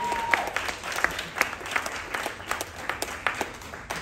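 Small audience applauding: a round of scattered individual claps that fades toward the end.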